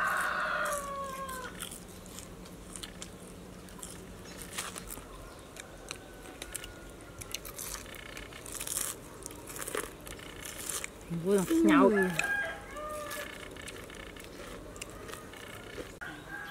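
A rooster crowing, its call trailing off and falling in pitch about a second in, with scattered small clicks. About eleven seconds in comes a louder, wavering call lasting about a second.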